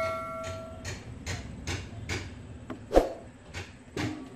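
A ringing metal note dies away in the first second, followed by a run of light knocks and clicks about every half second as metal engine parts and tools are handled, with a sharper knock about three seconds in.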